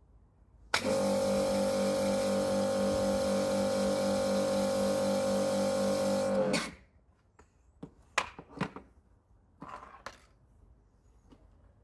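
Kärcher electric pressure washer's motor and pump running steadily for about six seconds, starting and cutting off abruptly as the gun trigger is pressed and released, while it flushes leftover detergent out of the suction tube with the tube out of the bottle. A few light knocks and clicks follow.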